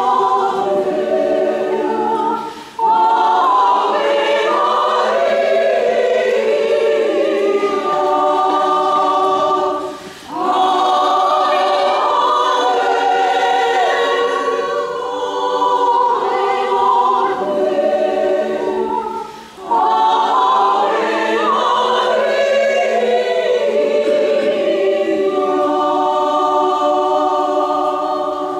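Senior women's choir singing unaccompanied in several parts, holding chords in long phrases with short breaths about 3, 10 and 20 seconds in. The singing stops at the very end as the song finishes.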